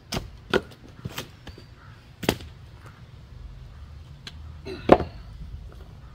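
Five sharp chopping strikes of a splitting tool into a wet, stringy firewood round: three in quick succession, one about two seconds in, and the loudest near the end. The stringy fibres hold the wood together, so it takes repeated blows.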